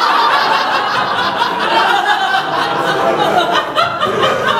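Audience laughing at a punchline, many people at once.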